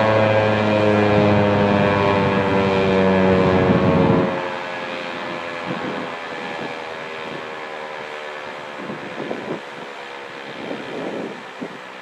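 ASC T-135 electromechanical warning siren winding down, its tone falling steadily in pitch. About four seconds in, the motor's low hum cuts off and the level drops, while the fainter tone keeps falling as the rotor coasts down. Wind gusts buffet the microphone.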